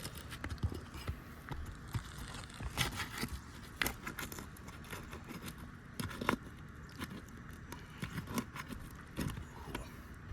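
Asphalt roof shingles being pried up with a roof snake: scattered scrapes, clicks and crackles as the tool slides under the tabs and breaks the adhesive seal strips, over a steady low rumble.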